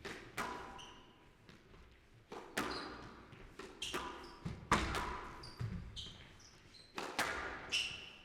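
Squash rally: the ball is struck by rackets and smacks the court walls in a series of sharp cracks about a second apart, each echoing in the hall, with short high squeaks of players' shoes on the court floor between shots.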